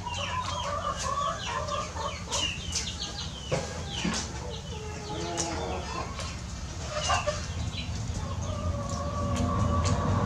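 Chickens clucking and chirping throughout, with many short high calls and a longer drawn-out call near the end. A few light clicks are heard among them.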